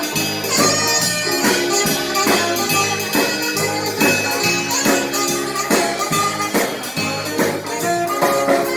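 Live band playing an instrumental passage between sung lines: drums and percussion keep a steady beat under bass and sustained chords.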